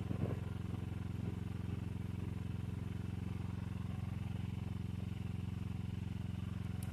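An engine idling steadily, a low even hum with rapid firing pulses, and a faint click near the end.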